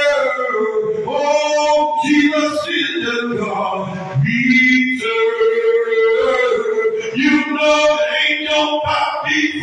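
A man singing unaccompanied into a microphone, in long drawn-out notes that slide from one pitch to the next.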